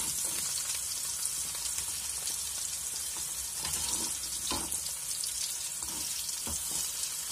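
Sliced onions and green chillies sizzling steadily in hot oil in a kadai, frying until they turn brown, with a spatula scraping the pan a few times as they are stirred.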